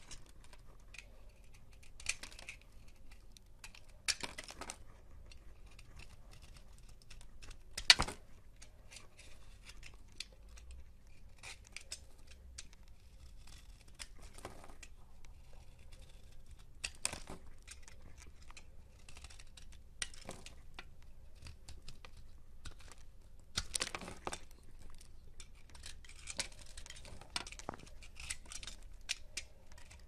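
Snap-off utility knife blade slicing and shaving a bar of soap: crisp scraping cuts, irregular and a few seconds apart, coming closer together near the end, the loudest about eight seconds in.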